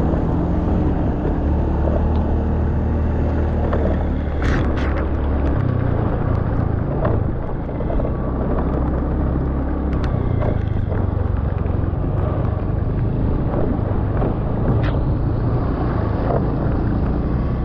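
An engine running steadily with a low drone that shifts in pitch twice. A few sharp knocks or clicks sound over it.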